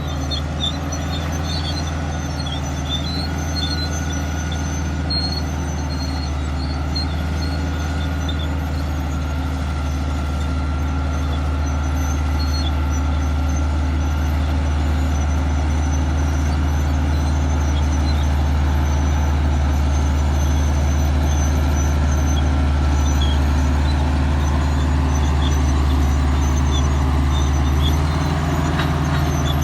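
Komatsu D155A-5 crawler bulldozer's diesel engine running steadily as it works: a deep, even drone that grows slowly louder, its note shifting near the end.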